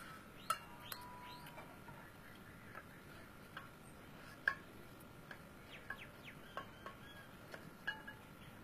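Faint, scattered light clicks and clinks, like steel plates and utensils being handled, over a thin steady high tone, with a few short chirps.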